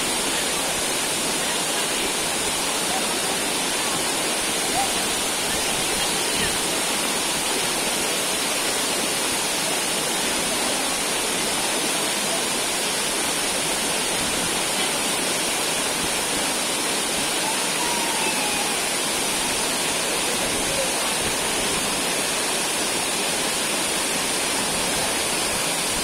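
A waterfall and a stream running over rocks give a steady, unbroken rush of water.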